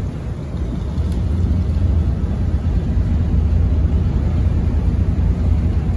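Ferry engine running under way with a steady low rumble, mixed with the wash of water and air along the deck.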